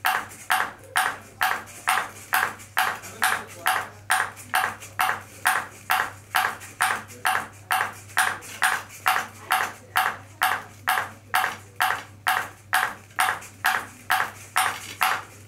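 Ping pong ball bouncing steadily on a robot's paddle plate: an even run of sharp pings, about two and a half a second, never missing a beat. A steady low hum runs underneath.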